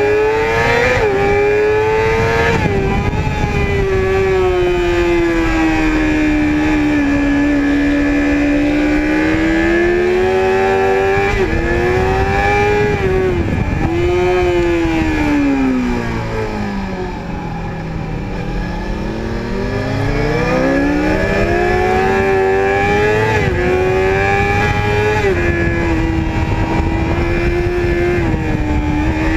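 Sport motorcycle engine at high revs, heard from onboard under wind noise, its pitch climbing and falling with small steps at the gear changes. About halfway through the revs drop well down and then climb again.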